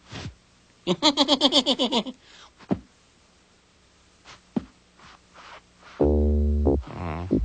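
Cartoon soundtrack music and sound effects in short separate strokes: a warbling, quickly wavering pitched sound about a second in, a few light clicks in the middle, and a loud low note near the end.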